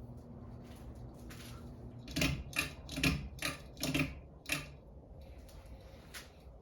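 Ceiling fan motor hum, then about seven sharp clicks in quick succession over roughly two and a half seconds. The hum stops as the clicks begin.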